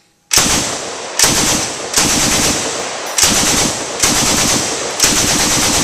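M60 belt-fed 7.62 mm machine gun firing long automatic bursts, several run together almost without a break, starting about a third of a second in.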